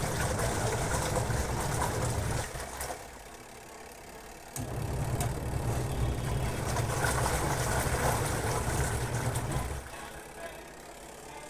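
Semi-automatic twin-tub washing machine's wash motor running the pulsator in runs with pauses: a low hum for about two and a half seconds, a two-second pause, then about five seconds more before it stops again near the end. The stop-start is typical of a twin-tub wash cycle, where the pulsator alternates direction.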